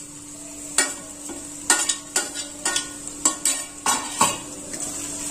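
Onions, garlic and ginger sizzling in oil in an aluminium kadhai as chopped green chillies are tipped in from a bowl, with about eight sharp clinks and knocks of utensils against the pan and bowl.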